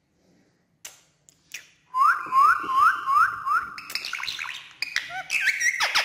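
Indian ringneck parakeet calling: after a couple of seconds of near quiet with a few faint clicks, it gives a run of about five quick, evenly spaced rising whistled chirps, then a busier string of higher-pitched calls.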